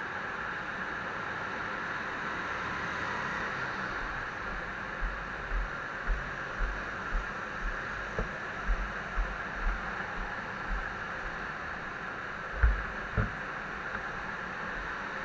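Steady noisy hum of a large indoor karting hall. From about five seconds in come soft low thuds about twice a second, in the rhythm of walking footsteps jolting the camera, with a couple of heavier bumps near the end.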